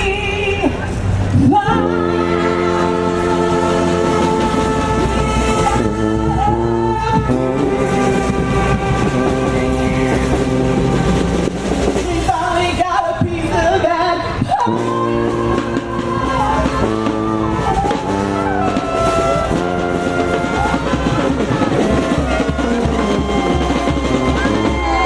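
Brass-and-drum street band playing, with long held horn chords broken by short stabbed phrases, and a woman singing over it at times.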